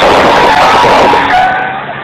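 Loud, distorted mix of tractor engines under load and crowd noise during a tractor tug-of-war; it drops away suddenly about one and a half seconds in.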